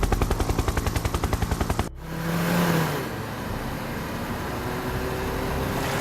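Film action sound effects: a rapid, even rattle of about ten strokes a second, like automatic gunfire, that cuts off abruptly about two seconds in. A steady rushing noise follows, with a brief low hum and a faint rising tone.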